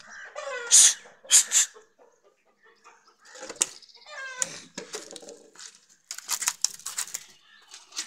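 Aseel chickens clucking and squawking in short, pitch-sliding calls, near the start and again about four seconds in, with several sharp noisy bursts between them.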